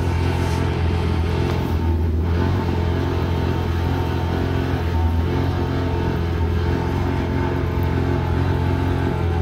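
Jet ski engine running steadily at low revs, a continuous even drone with no change in speed.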